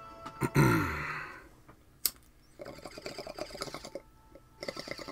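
A loud sound sweeping downward in pitch, then a single sharp click, then two bursts of rapid clicking like typing on a keyboard.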